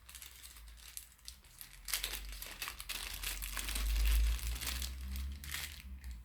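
Packaging crinkling and rustling as it is opened and handled by hand, a dense run of small crackles that grows busier after about two seconds. A dull low bump of handling comes a little past halfway.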